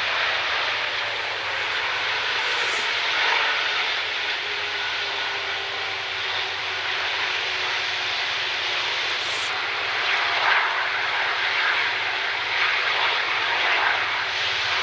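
Airbus A330 turbofan jet engines running during a ground engine test: a steady roar with a faint tone that slowly falls in pitch.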